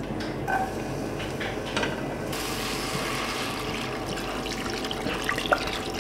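Water poured from a plastic bottle into a pot of raw chicken pieces, a steady splashing pour starting about two seconds in. Before it, a few light clicks, and a sharp click near the end.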